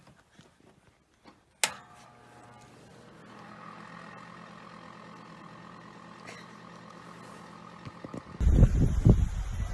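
A single sharp click as an electric radiant space heater is switched on, followed by its steady faint hum as the elements heat up. Near the end, loud rumbling wind noise on the microphone takes over.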